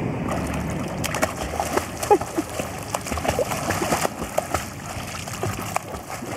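A weimaraner splashing in lake water, slapping the surface with its front paws in a run of irregular splashes from about a second in, as it tries to swim and does not yet paddle properly.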